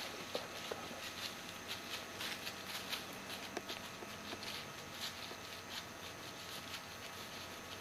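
Faint, irregular crackling and rustling of dry leaves and brush, a few light crackles a second.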